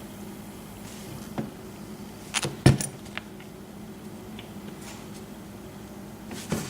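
Metal clicks and knocks from an antique Yale safe deposit lock being handled and taken apart: a few separate sharp clicks, the loudest a quick cluster about two and a half seconds in.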